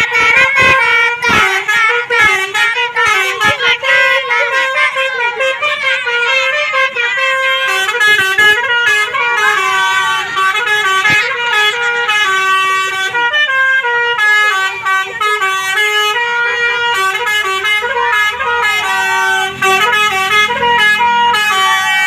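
Bus's 'telolet basuri' musical multi-trumpet horn playing a fast melody, loud, its notes stepping up and down several times a second. A low steady engine rumble comes in about three-quarters of the way through.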